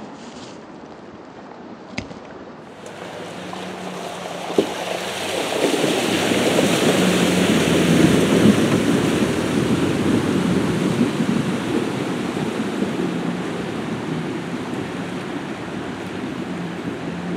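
Pickup truck fording a shallow river: water rushing and splashing around the wheels, building to its loudest about eight seconds in and then slowly fading as the truck pulls away. A steady low engine hum runs beneath.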